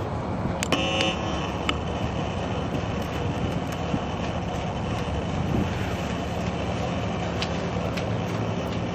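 Steady low rumble of urban road traffic, with a few faint clicks and a brief squeak about a second in.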